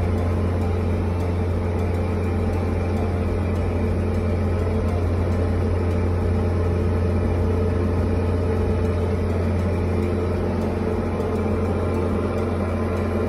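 Engine and propeller of a Diamond DA40 single-engine piston plane running at full takeoff power during the takeoff roll, heard from inside the cockpit. The sound is loud and steady, with no change in pitch.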